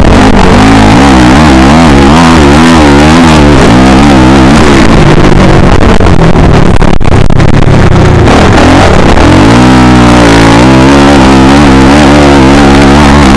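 Motocross motorcycle engine at full race effort, very loud and distorted, its revs rising and falling over and over as the rider works the throttle over the rough track, with a brief break about seven seconds in.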